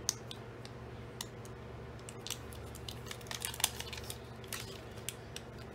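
Cardstock and lava paper pieces being handled and pressed into place: light paper rustling and crinkling with scattered small clicks, busiest a little past the middle, over a steady low hum.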